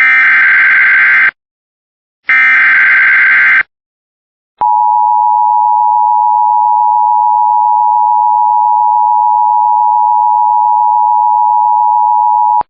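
Emergency Alert System signal: two harsh, screeching bursts of the SAME digital header, then the steady two-tone attention signal held for about eight seconds, which announces a weather warning about to be read.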